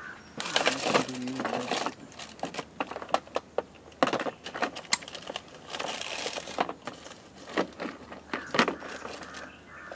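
Irregular crinkling, rustling and clicking handling noises, close to the microphone, with a short pitched sound about a second in.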